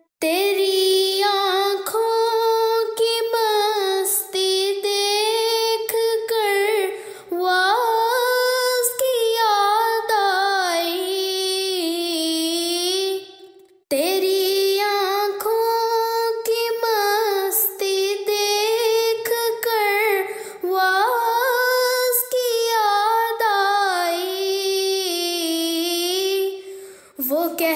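A woman singing an Urdu nazm melody in long, ornamented phrases, a single voice with no other instrument standing out, pausing briefly about fourteen seconds in and again near the end.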